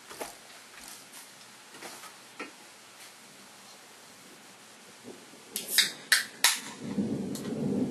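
Faint steady hiss with scattered small clicks, then a few loud sharp cracks a little over five seconds in, followed by a low rumble of thunder that builds toward the end.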